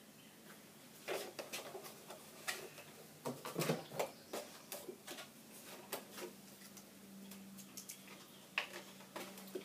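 Plastic jugs and containers being handled, set down and knocked against a counter: scattered knocks and clicks, with a low steady hum underneath.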